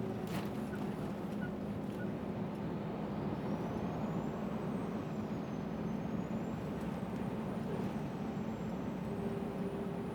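Scania R400 Streamline truck heard from inside the cab while driving: steady diesel engine and road noise with a thin, high turbocharger whine that slowly drifts up and down in pitch. The turbo is a Scania remanufactured replacement, and its whine is the excessive noise the driver complains of, like a dentist's drill.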